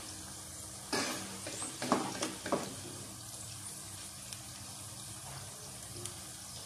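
Taro pieces frying in oil in a karahi, a steady sizzle, with a few knocks and scrapes of a metal slotted spoon against the pan between about one and two and a half seconds in as the pieces are lifted out.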